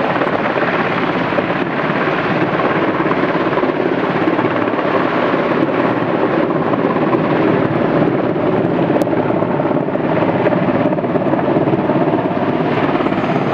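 Rescue helicopter hovering, its rotor and engine running steadily at an even level.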